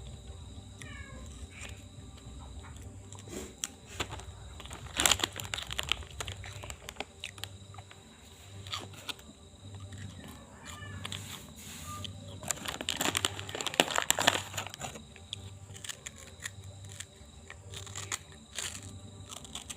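Rustling and crackling noises in two bouts, about five seconds in and again around thirteen seconds in, over a low pulsing hum and a few faint chirps.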